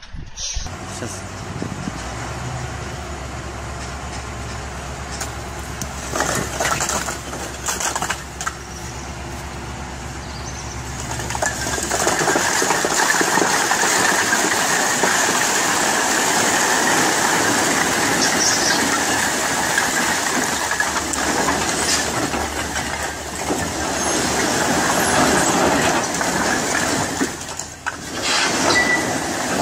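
A large truck's engine running steadily under load, with some clattering. About twelve seconds in it gives way to a continuous dense clatter of bricks sliding and tumbling out of a tipped dump-truck body.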